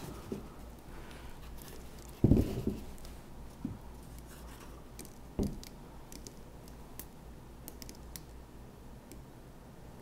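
Soft handling noises from a canvas being turned and worked with white acrylic paint: a dull knock about two seconds in, two softer knocks later, and faint light ticking and scratching between them.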